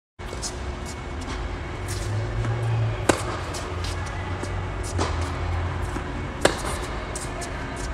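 Tennis balls struck by rackets during a baseline rally on an indoor court: three sharp pops spaced about a second and a half to two seconds apart, with fainter ticks of bounces and distant shots between.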